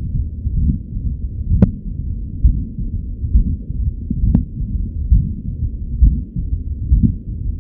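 Recorded heart sounds: a heartbeat repeating steadily, muffled with nothing above the low range. Twice a sharp click cuts through.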